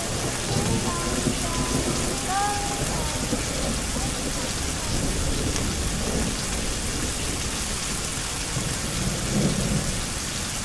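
A steady rain sound effect, with low rolls of thunder swelling about halfway through and again near the end. The faint last sliding notes of the song die away in the first few seconds.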